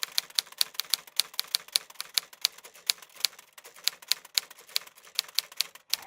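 Typewriter keys clacking in quick, uneven succession, several strikes a second.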